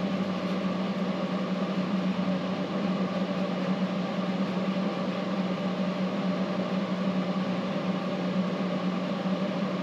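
A steady motor hum with an even hiss, unchanging throughout, like a fan or air-conditioning unit running.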